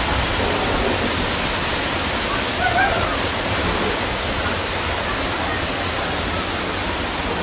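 Floodwater from a flash flood rushing through a street, a loud steady noise of fast-moving muddy water.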